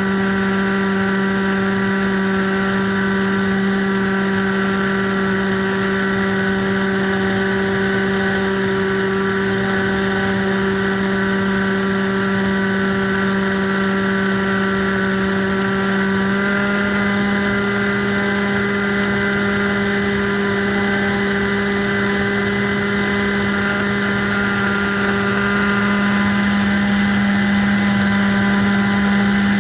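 Motor and propeller of a radio-control FPV plane droning steadily in flight, heard on the onboard microphone. The pitch steps up slightly twice, about halfway through and again near the end, as the throttle is opened a little.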